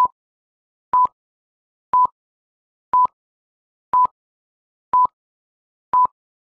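Film-leader countdown beeps: a short, steady, high electronic beep once a second, each with a faint click at its edges, ticking off the countdown numbers.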